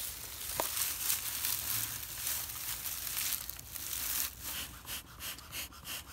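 Dry pine straw and leaves crunching and crackling as they are grabbed and stuffed into a bee smoker. Then, for the last couple of seconds, the smoker's bellows are pumped in short, even puffs of air, about three a second.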